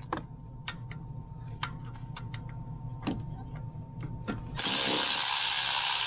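Scattered clicks and knocks of a socket and tools on metal, then about four and a half seconds in a cordless electric ratchet starts running steadily, backing off a timing belt tensioner bolt.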